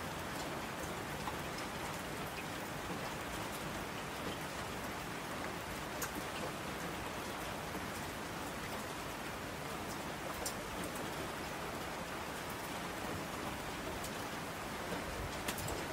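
Steady rain falling, an even hiss with occasional sharper drop ticks.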